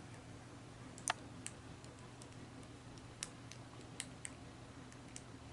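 Faint, scattered clicks and taps of small plastic toy figures being handled, over a low steady room hum.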